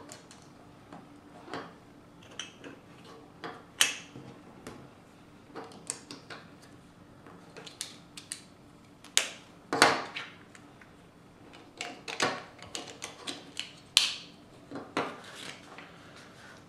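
Plastic Lego bricks being handled and pressed together, making irregular small clicks with a few sharper snaps scattered throughout.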